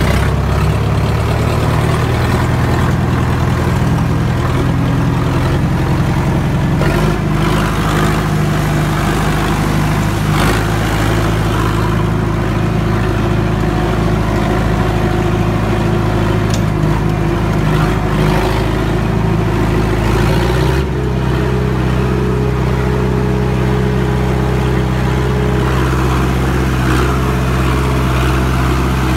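Diesel engines running steadily during a rope tow of a stuck truck by an HMT 6522 tractor. The engine note shifts about 7 seconds in and again about 21 seconds in.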